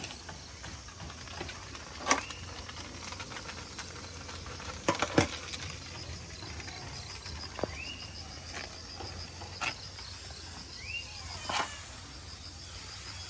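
Outdoor ambience of insects chirping in a steady, fast-pulsing high trill, over a low steady rumble. A few sharp clicks or knocks break in, the loudest about two and five seconds in, along with several short rising-then-falling bird-like calls.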